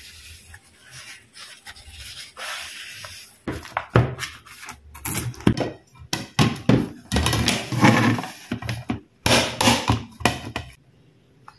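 Paper tissue rubbing along a steel knife blade. Then from about three seconds in, a run of irregular clunks and knocks as a square aluminium cake tin is handled and set down on the tabletop.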